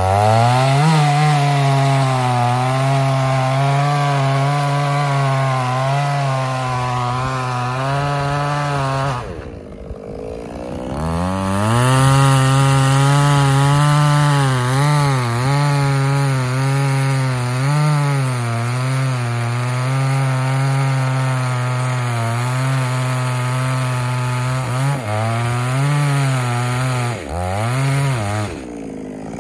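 Chainsaw running at full throttle through a felling cut at the base of a tree trunk, its pitch wavering as the chain bites. About nine seconds in the engine drops back and goes quiet for a moment, then revs up again a couple of seconds later and keeps cutting, easing off briefly a few times near the end.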